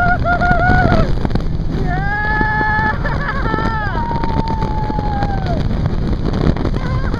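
Roller-coaster riders screaming, several long high screams one after another, the last falling in pitch. Underneath is a steady low rush of wind and ride noise from the moving train.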